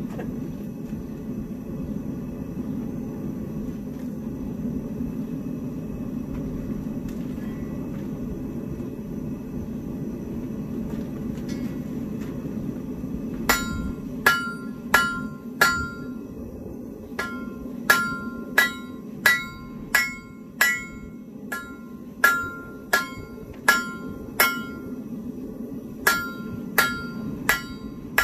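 Propane forge burners roaring steadily. About halfway through, a hand hammer starts striking hot steel on a homemade anvil whose face is a forklift fork, each blow ringing briefly, about two blows a second in runs with short pauses.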